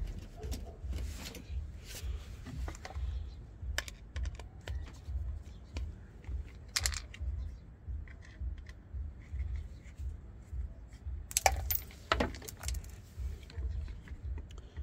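Light metallic clinks and rattles of small pump parts being handled, several separate clatters with the loudest pair about three quarters of the way through, over a steady low throbbing hum.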